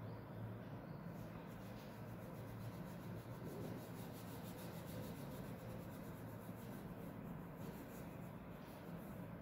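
Faint scratchy rubbing of an oil pastel crayon on paper, in quick back-and-forth colouring strokes, over a low steady hum.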